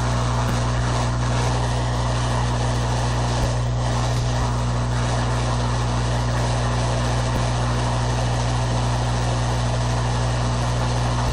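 Hot-air rework station blowing steadily, a constant hiss of air over a low fan hum, preheating a circuit board around a chip before it is desoldered.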